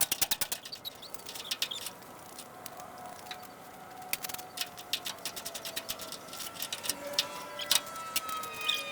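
Metal clicks and clinks of bolts and tools being handled, a quick run of them at the start and then scattered single ones.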